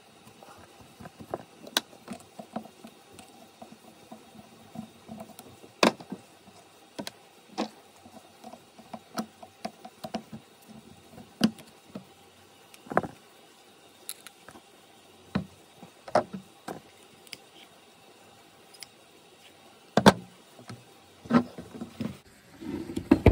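Irregular light clicks and knocks from a VW Solex 28 PICT-1 carburetor's metal body and parts as it is handled and turned over by hand, with the sharpest knocks about six seconds and twenty seconds in.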